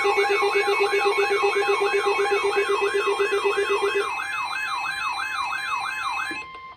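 NOAA Weather Radio's steady 1050 Hz warning alarm tone sounding together with a warbling siren-like alarm that sweeps up and down about two to three times a second. A pulsing low beep stops about four seconds in, and all the tones cut off suddenly just before the end.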